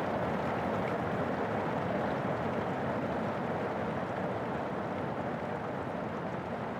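Steady rain falling, an even rushing noise with no separate drops or knocks standing out.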